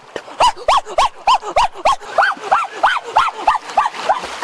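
Water splashing as a swimmer thrashes in a stream. Over it runs a rapid, even series of short calls, about four a second, each rising and falling in pitch.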